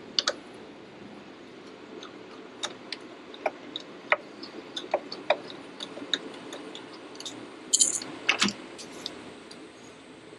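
Irregular light clicks and taps of hands and tools on engine parts as the intake manifold is worked loose, with a louder clatter about eight seconds in.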